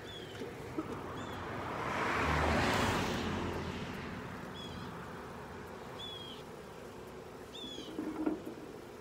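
A car passes on the road, its noise swelling to a peak about two and a half seconds in and then fading away. A bird repeats a short downward chirp every second or so, and there are a few light knocks near the end.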